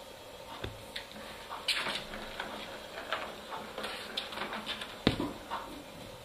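Kittens pawing at and clambering over a plastic ring-shaped ball-track toy: irregular light clicks, knocks and rustles of paws on the plastic, with one louder thump about five seconds in.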